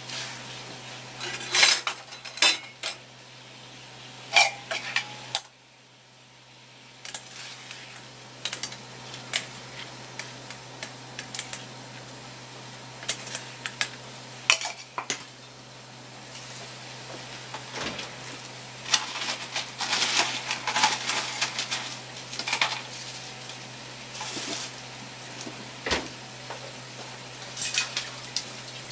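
Metal ladle clinking against a saucepan in irregular clusters of sharp clinks, over the bubbling of water at a rolling boil as shrimp are put in to cook.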